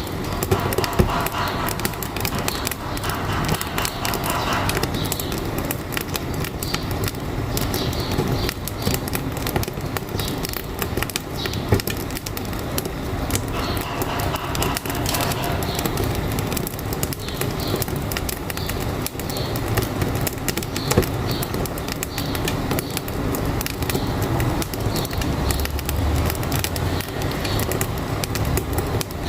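Wood fire crackling in a wood-burning stove, a dense run of snaps and pops, over the low rumble of a truck engine running.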